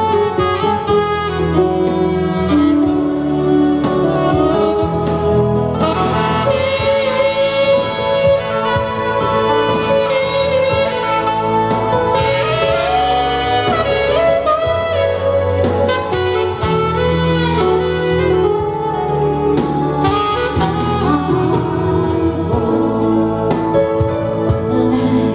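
Live synthesizer music from a Roland XP-80 with an expansion board: a saxophone-sounding lead melody with pitch bends, over bass notes and chords.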